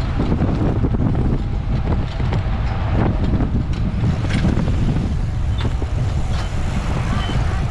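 Wind buffeting a bicycle-mounted onboard camera's microphone at race speed, a loud, steady low rumble with scattered small clicks. A few short high beeps sound near the end.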